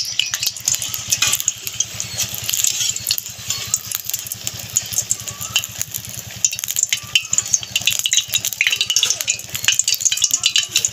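Papad-wrapped samosas sizzling and crackling in hot oil in an iron kadai, as a metal slotted spoon scrapes and clinks against the pan lifting them out.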